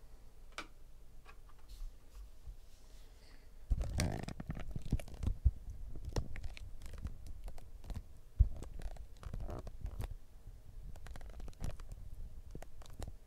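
Handling noise from the camera being moved and repositioned: a low rumble with scraping and many sharp clicks that starts suddenly about four seconds in and dies down near the end. Before that there are only a few faint clicks.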